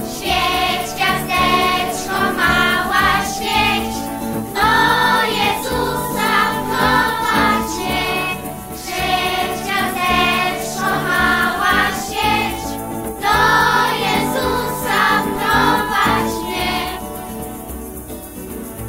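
Young voices singing a Polish Christmas carol (kolęda) together over instrumental backing, in phrases with short breaths between them; the singing stops near the end while the accompaniment carries on.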